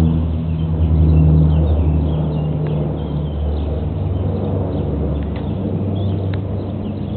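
Canadair CL-415 water bomber's twin turboprop engines droning overhead, fading gradually as the aircraft flies on. Birds chirp faintly in the background.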